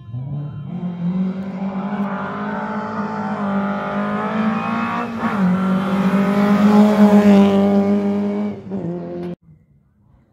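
Lada rally car's engine held at high revs, getting louder as the car approaches at speed, with a short break in the note about five seconds in. The sound cuts off suddenly near the end.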